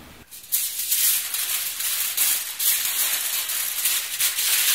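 A sheet of aluminium foil being handled and crinkled, a dense crackling rustle that starts about half a second in and keeps going.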